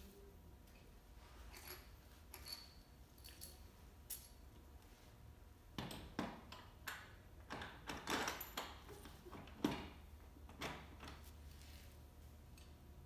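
Scattered clicks and light metallic clinks of hand tools and wheel hardware while the front wheel of a small electric ATV is fitted, busiest in the middle of the stretch.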